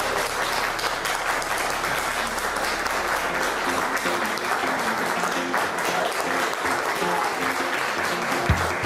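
Wedding guests applauding steadily, with faint music coming in about halfway through.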